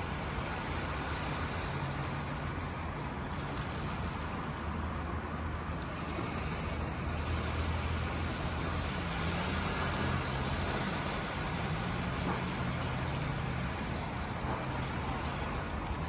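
Small waves washing steadily in over a shallow sandy beach, an even hiss of water. A low steady hum with a slightly wavering pitch runs underneath.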